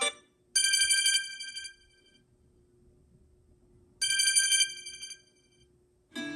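Samsung Galaxy A33 5G stock ringtone: a short, high, fast-trilling ring like a telephone bell, played twice about three and a half seconds apart.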